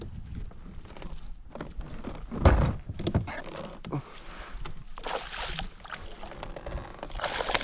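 A small hooked fish splashing at the water's surface beside a kayak as it is drawn to a landing net, in short bursts about five seconds in and again near the end. A single loud thump about two and a half seconds in.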